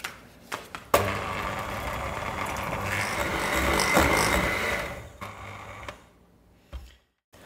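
Electric hand mixer running, its beaters whipping thick boiled-condensed-milk caramel (dulce de leche) in a glass bowl to make it creamy. The motor starts abruptly about a second in and stops about five seconds in.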